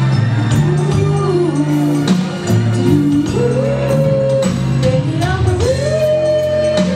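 Live soul band music with singing: bass and drums keep a steady beat while a woman's voice, over a man's, holds two long high notes in the second half.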